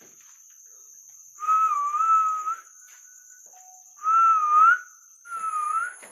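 A person whistling three wavering notes, the first over a second long and the other two shorter, with breath audible under the tone. The steady high drone of crickets runs underneath.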